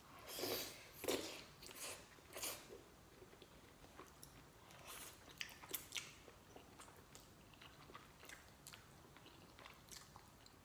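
Two people slurping and chewing saucy Buldak jjajangmyeon (spicy black bean instant noodles). The strongest slurps come in the first two or three seconds, followed by quieter wet chewing and mouth clicks.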